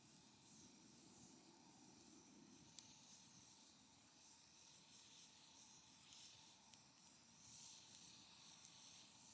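Faint wood fire burning in a fire pit: a soft hiss of flames that swells and fades, with a few sharp crackles.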